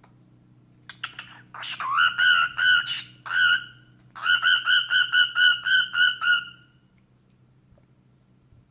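Cockatiel giving rapid, repeated chattering chirps in two bursts of a couple of seconds each, the first starting about a second in. The notes come several a second.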